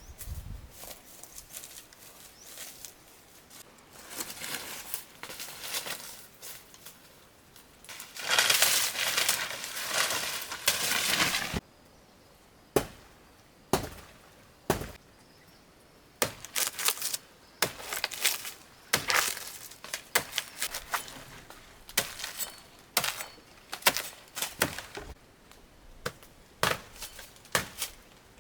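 Dry plant material rustling and crunching for a few seconds, then a long run of sharp, irregular chopping strokes, a blade cutting at banana plants during the harvest.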